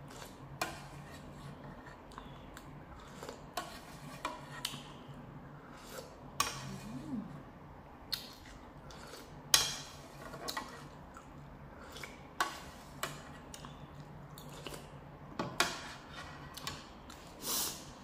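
Close-miked eating of thick noodle soup: a metal spoon clicking against a ceramic bowl and broth sipped and slurped from the spoon, as a series of short, separate sounds over a faint steady low hum.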